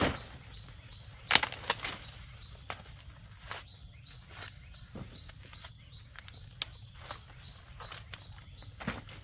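Irregular snaps, cracks and rustles of footsteps and dry corn plants being handled, over a steady high insect drone.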